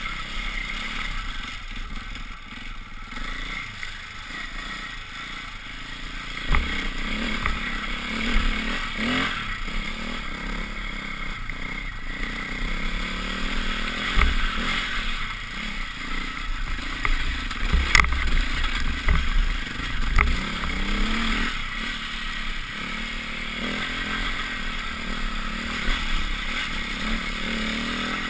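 Off-road motorcycle engine revving up and down as it is ridden over a rough trail, with clatter and several sharp knocks from the bike over the bumps.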